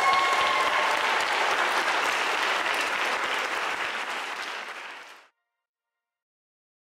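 Crowd of guests applauding, the clapping fading away and gone a little over five seconds in.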